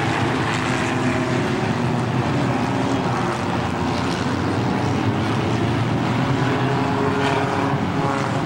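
A field of race cars going around the track together, many engines running at once in a steady, overlapping drone.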